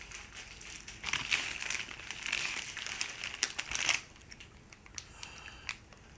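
Chip bag crinkling and rustling as a hand rummages in it for chips, in crackly bursts between about one and four seconds in, then quieter.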